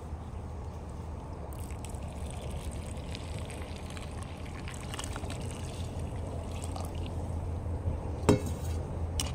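Hot water poured from a bowl onto brown sugar in an aluminium pot: a steady splashing pour that starts about a second and a half in. There is a sharp knock near the end.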